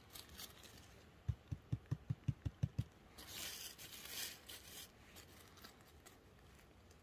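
Dry leaf litter crackling and rustling as a hand brushes it aside around a young cep, about three seconds in, after a quick run of about nine soft low thumps.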